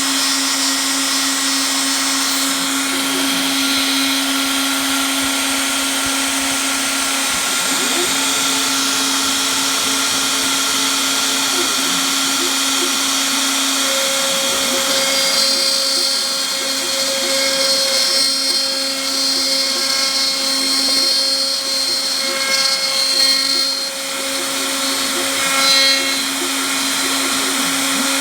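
Home-made CNC router running with a steady motor whine. About halfway through, higher whining tones join in for some twelve seconds and drop away near the end.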